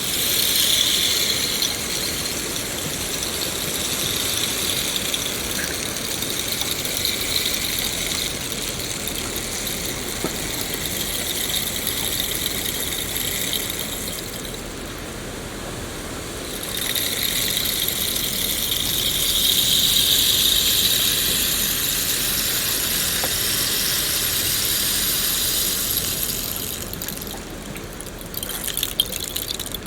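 Steady rain, an even hiss, with a higher band that swells and fades and twice drops out briefly.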